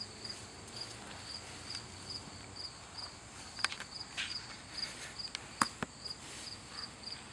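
Cricket chirping steadily, short high chirps about twice a second. A few sharp clicks stand out over it, one about halfway through and two close together later on.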